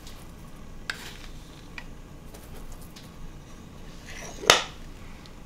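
Light clicks of a metal spoon and a wooden salt box as salt is spooned into a pot of broth, with one sharp knock about four and a half seconds in.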